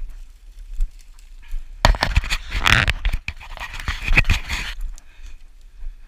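Dry grass and scrub brushing and scraping against the microphone as someone pushes through tall vegetation. It is loudest for about three seconds in the middle.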